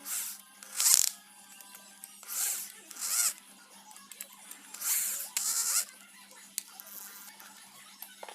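Soft background music under five short bursts of harsh, rasping noise, the loudest about a second in.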